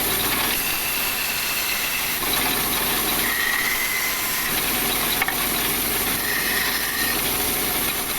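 Woodworking machinery running steadily in a sawmill workshop, giving an even hiss over a low hum, with a sharp click about five seconds in.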